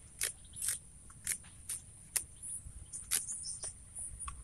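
Fresh leaves being plucked from leafy stems by hand: scattered, irregular sharp snaps and rustles.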